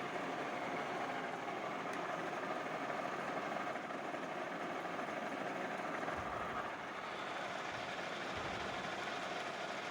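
Metal-turning lathe running steadily, with a constant hum and a few steady tones from the spindle and gearing.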